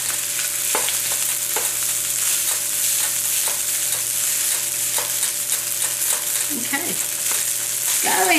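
Fried rice sizzling in a hot oiled wok while a spatula stirs and scrapes through it, the strokes striking the pan every second or so.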